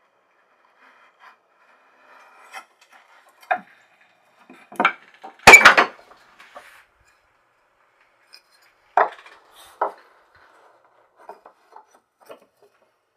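Wooden scrap blocks handled on a wooden workbench: scattered knocks of wood on wood, the loudest a heavy knock about halfway through, with faint scraping before the first knocks.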